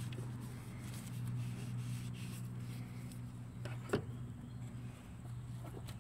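A motor running with a steady low hum that fades out near the end, with one sharp click about four seconds in.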